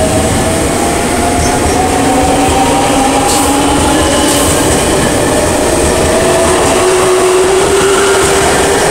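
A JR 383-series electric express train pulling out past the platform with a steady rumble of wheels on the rails. Over the rumble, motor whine tones slowly climb in pitch as it gathers speed.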